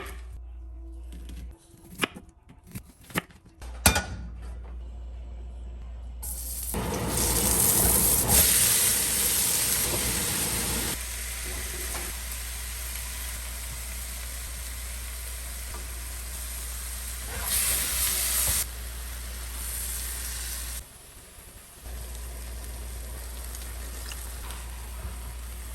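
Food sizzling and being stir-fried in a hot pan. A few knocks of utensils come in the first seconds, then the sizzle sets in and flares loudest twice.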